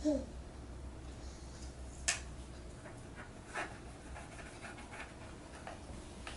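Light handling sounds of stickers being peeled and pressed onto plastic toy crane parts: scattered soft taps and rustles, with one sharper click about two seconds in. A brief vocal sound comes at the very start.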